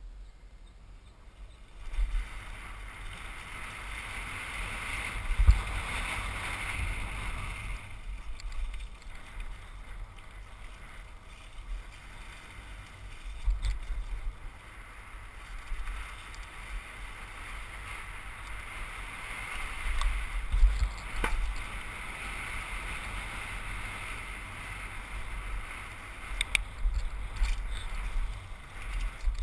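Helmet-camera riding noise from a Trek Session 8 downhill mountain bike descending a dirt trail: wind rushing over the microphone and tyres rolling on dirt, with a low rumble and scattered thumps and rattles from the bike over bumps. It starts about two seconds in, as the bike rolls off from near quiet.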